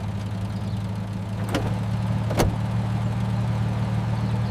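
Steady low vehicle engine hum, as heard from inside a car, with two sharp clicks about a second and a half and two and a half seconds in.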